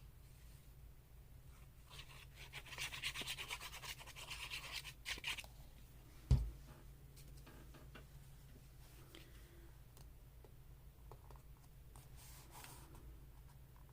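Fast back-and-forth rubbing on paper for about three seconds as a paper piece is glued down, followed by a single low thump.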